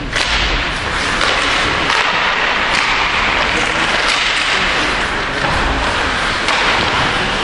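Ice hockey play in a rink: a steady hiss of skate blades on the ice under indistinct voices, with a few faint clacks of sticks or puck.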